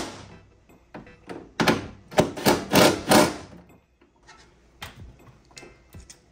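A quick run of loud, hollow thunks from a carbon fiber trunk lid being pushed shut onto the car body without its latch fitted, so it does not stay closed. Fainter clicks follow in the last couple of seconds.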